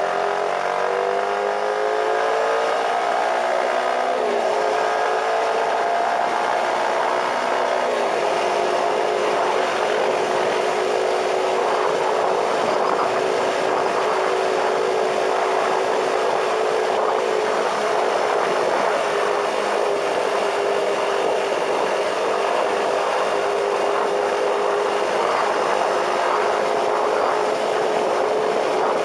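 Motorcycle engine pulling up through the gears, its pitch rising twice over the first eight seconds, then running steady at cruising speed, with a constant rush of wind and road noise.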